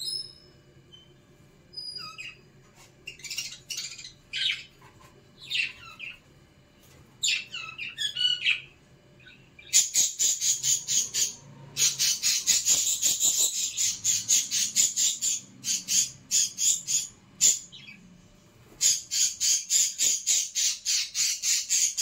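Caged budgerigars calling: scattered short whistled chirps, then from about ten seconds in a fast run of loud, sharp chirps, about five a second, broken by brief pauses.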